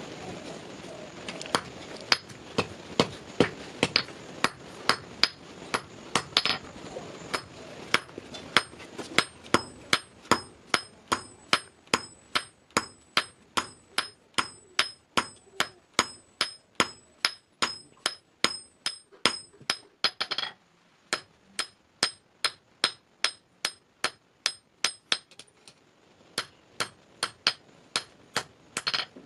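Hand hammer striking hot iron on a steel block anvil, steady blows about two a second, each with a high metallic ring, as the bar's end is flattened into a round disc. The blows stop briefly about twenty seconds in, then go on more lightly.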